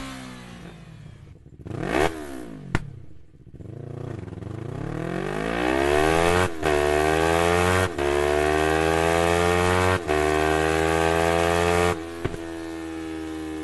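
Yamaha MT-03's 321 cc parallel-twin engine revved through an Akrapovič exhaust. The revs fall away, there are two quick sharp blips, then the revs climb slowly to a high held speed that dips briefly a few times, and near the end they drop to a lower steady speed.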